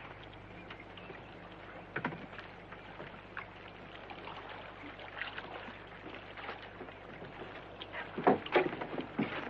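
Faint outdoor ambience with scattered soft footsteps, then a few louder wooden knocks and steps about eight seconds in, as of people stepping onto a wooden dock beside a moored boat.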